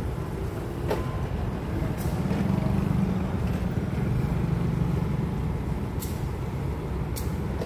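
Diesel-electric locomotive's engine running with a steady low rumble, with a few short sharp clicks over it.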